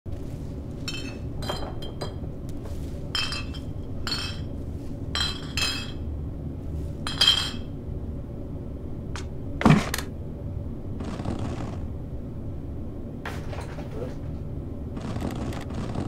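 A series of light clinks of small hard objects being handled, over a steady low room hum, then about ten seconds in one loud short sound that sweeps down in pitch, and two brief rustles near the end.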